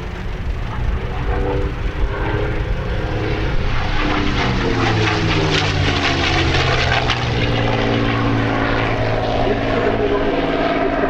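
P-51D Mustang's Packard Merlin V12 engine running as the fighter flies past, growing louder for the first few seconds, with the engine pitch falling as it passes.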